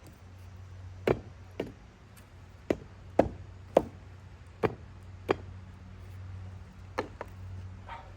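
About nine sharp, irregularly spaced knocks of a hard tool striking a concrete retaining wall block, over a steady low hum.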